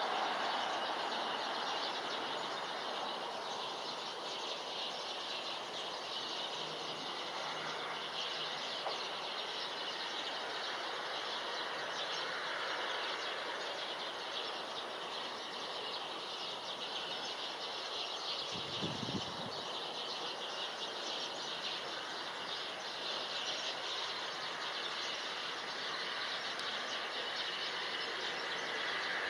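Steady distant city background noise, an even hiss with no single source standing out. A brief low rumble rises and fades about two-thirds of the way through.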